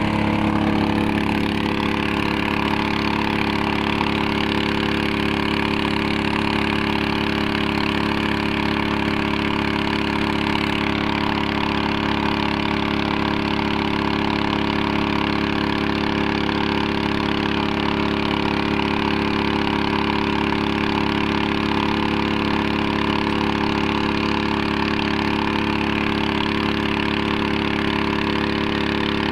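A small motor running steadily at one constant speed, its pitch unchanging throughout.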